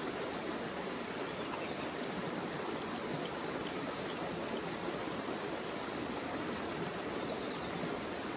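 Steady rushing of a flowing river, with a few faint clicks about three to four seconds in.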